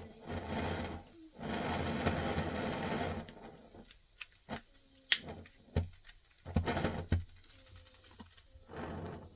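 Butane gas soldering iron hissing steadily as it is relit, with several sharp clicks in the middle of the stretch.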